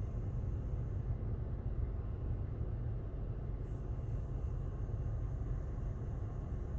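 Steady low rumble of outdoor background noise, with no clear event standing out.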